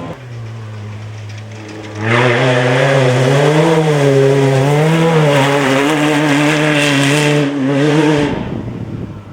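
Off-road race vehicle engines: a steady engine note for about two seconds, then a much louder engine cuts in, revving up and down under changing throttle, and breaks off suddenly near the end.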